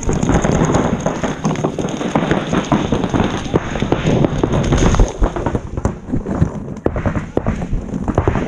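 Paintball markers firing in fast, overlapping strings of sharp pops. The pops run together at first and come through more separately, with short gaps, in the second half.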